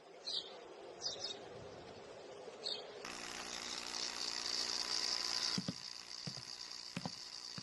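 A few faint, short high chirps, then a faint steady hiss from about three seconds in, with a few soft clicks.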